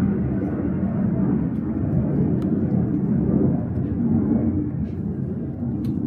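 Steady low rumbling background noise, with a few faint clicks.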